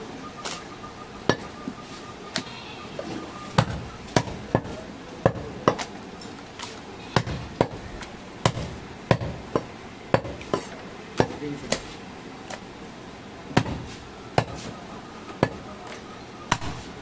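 Heavy butcher's chopping knife striking goat meat and bone on a wooden chopping block: a string of sharp, irregular chops, roughly one or two a second, some in quick pairs.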